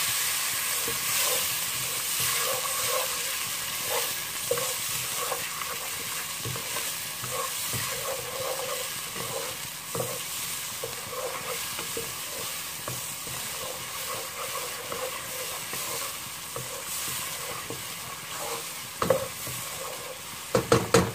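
Onion, garlic and spice masala sizzling in hot oil in a nonstick pot just after a splash of water has gone in, while a wooden spoon stirs through it. The sizzle eases off gradually, and a few sharp knocks sound near the end.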